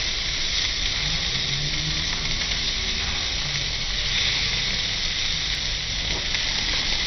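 Thick cubes of meat sizzling steadily on a hot grill plate over charcoal: an even frying hiss.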